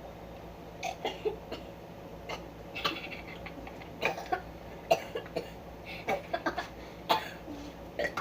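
People chugging drinks from cups: a series of short, irregular gulps and throat sounds.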